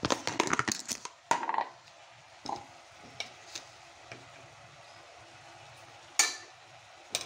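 Steel spoon scraping and clinking against a metal cooking pot as fenugreek (methi) leaves are stirred, a quick run of scrapes in the first second and a half, then a few lighter scrapes, over a faint sizzle. A sharp metal knock of the spoon on the pot about six seconds in is the loudest sound.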